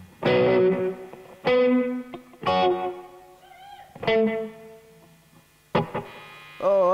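Distorted electric guitar striking five separate chords, each one left to ring and fade before the next.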